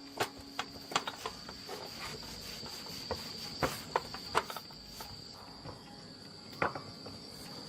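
A steady, high-pitched insect trill, like crickets, with irregular sharp clicks and taps over it.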